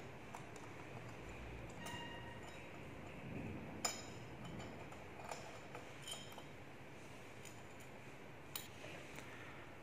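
Faint, scattered metal clinks and clicks from an Allen key and small loosened nuts being worked and lifted out of a brush cutter's gear head, one ringing briefly about two seconds in and the sharpest near four seconds.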